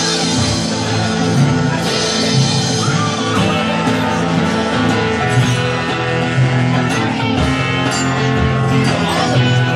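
Rock band playing live, with guitar prominent over a steady beat.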